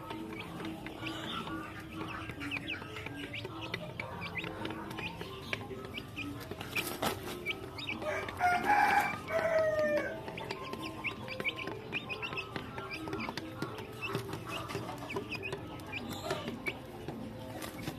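Young Ayam Cemani chickens clucking softly and tapping their beaks on wooden boards as they peck grain. About eight seconds in, one bird gives a loud, drawn-out call that lasts about two seconds.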